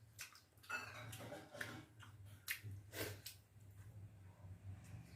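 A person chewing and eating a meal of pakhala (watered rice) with vegetables: a few scattered wet clicks and smacks of the mouth, over a low steady hum.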